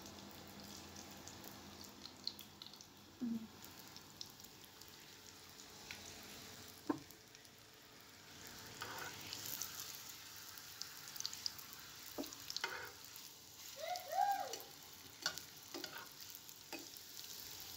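Papad frying in a pan: a faint, steady sizzle with scattered light clicks and scrapes as a spatula turns the papad.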